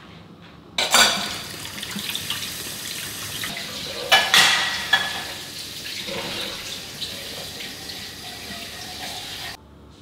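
Kitchen tap running into a stainless steel sink while dishes are washed, with a few sharp clinks of plates, the loudest about four seconds in. The water starts about a second in and cuts off suddenly near the end.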